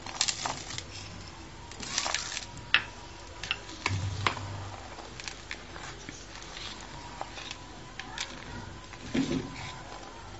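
A spatula stirring chocolate chips through a thick chocolate cream in a bowl, making scattered light clicks and scrapes against the bowl.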